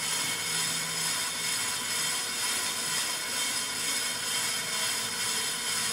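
Pro-Cut on-car brake lathe running steadily, spinning the car's brake rotor on its hub while turning the rotor surface; a steady whine of several high tones over a constant hiss.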